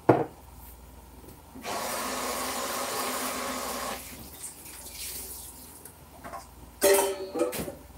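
Kitchen tap running into a sink for about two seconds, starting a couple of seconds in. A sharp knock comes at the very start, and a brief louder sound near the end.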